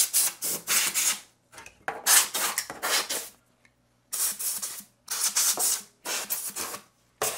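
Aerosol can of lithium grease spraying through a straw nozzle onto the printer's Z lead screws, in about seven short hissing bursts.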